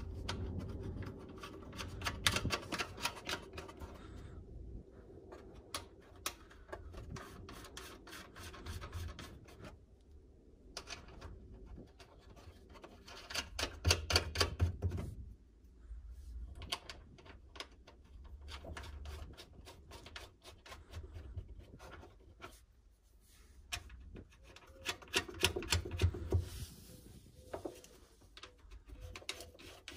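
Nuts being run by hand onto the studs of a 1995 Honda Civic's fuel pump mounting flange: rapid clicking and scraping in bursts near the start, about halfway and near the end.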